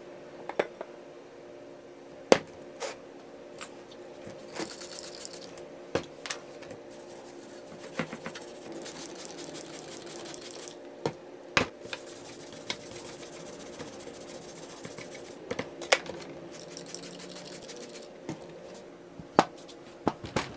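A rusty steel axe head being handled and cleaned, with sharp knocks and clinks against the dish and tray. There are several stretches of high hissing from a trigger spray bottle of cleaner.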